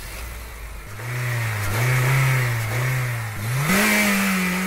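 Car engine revving as a logo sound sting: a low rumble, then about a second in the engine note swells up and down a few times before climbing to a higher, held pitch near the end.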